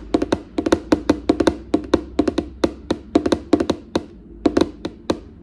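Fingers tapping quickly on a rigid white cardboard gift box, ASMR-style: runs of crisp clicks, several a second, with a short break about four seconds in and a pause near the end.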